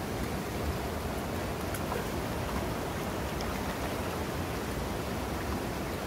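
Mountain stream rushing over rocks in shallow rapids: a steady, even rush of water.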